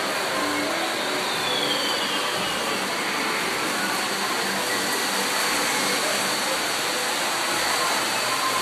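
Model trains running around the display's tracks, a steady, even whirring rumble.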